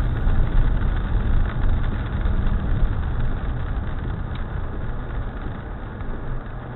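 Car driving on a rain-wet road, heard from inside the cabin: a steady low engine and road rumble with tyre hiss, easing off gradually as the car slows for an intersection.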